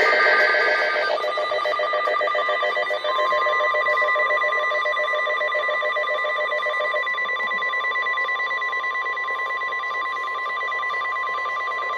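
NOAA Weather Radio emergency alert signalling a flash flood warning. It opens with a brief burst of SAME digital header tones, then from about three seconds in the steady 1050 Hz warning alarm tone sounds, with other pulsing electronic tones underneath.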